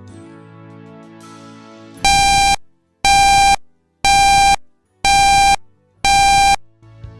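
Soft smooth-jazz music, cut across about two seconds in by five loud buzzing alert beeps, each about half a second long and one a second: a WeatherStar 4000-style weather warning tone.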